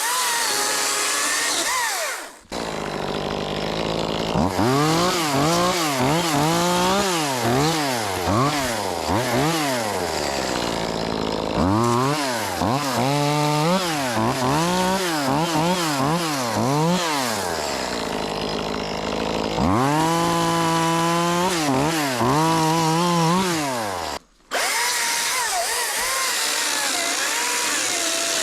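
Top-handle chainsaw cutting wood, its pitch rising and falling over and over. There are two brief breaks, one about two and a half seconds in and one near the end.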